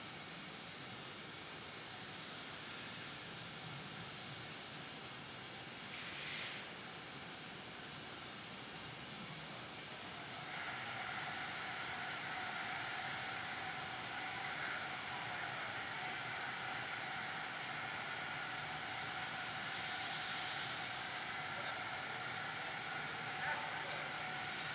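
Steam locomotive standing and hissing steadily, with a brief louder puff of steam about six seconds in and a stronger burst of hiss about twenty seconds in; from about ten seconds a thin steady whine joins the hiss.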